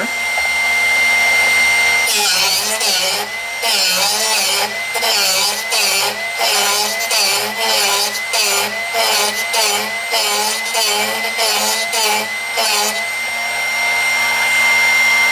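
Drill Doctor XP2 drill bit sharpener running with a steady high whine while a drill bit is ground against its diamond wheel. From about two seconds in, the motor's pitch dips rhythmically about twice a second as the bit's chuck is turned in the sharpening port and the wheel bites into the bit's point. Near the end the grinding stops and only the steady whine of the free-running motor is left.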